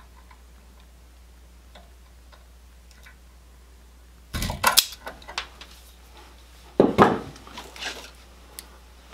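Klein wire strippers snapping and clicking as they strip the insulation off the ends of two Romex conductors. There are two sharp snaps, starting about four seconds in and about two and a half seconds apart, with lighter clicks between and after them.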